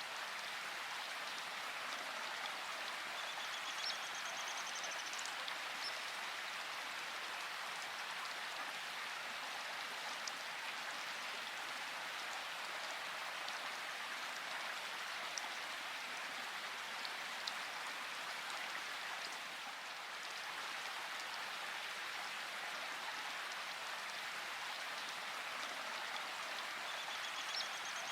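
Steady rain falling, an even hiss of drops with a few sharper single drop taps scattered through it.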